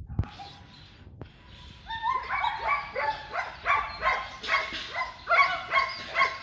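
German Shepherd dog barking rapidly during bite-work training, about three short barks a second, starting about two seconds in after a couple of faint knocks.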